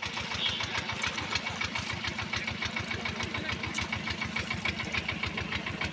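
A small engine running steadily with a fast, even chug, cutting in suddenly.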